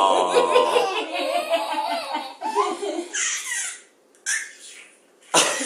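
Baby laughing in a long run of giggles and belly laughs that breaks off about four seconds in, followed by a short laugh and another starting near the end.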